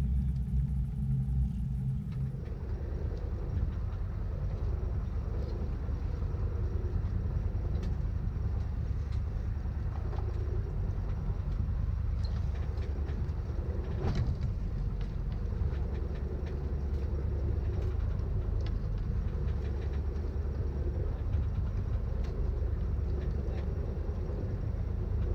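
Steady low rumble aboard a fishing boat at sea, with a few faint knocks and clicks.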